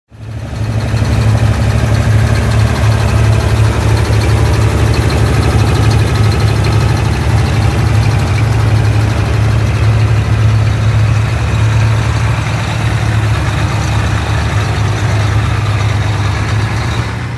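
Tractor engine running at a steady idle, a deep, even drone that holds without revving.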